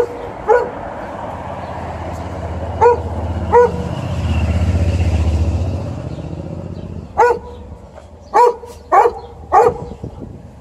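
Golden retriever barking: short single barks, about eight in all, in spaced groups. Around the middle, a vehicle passing on the road swells and fades behind the barks.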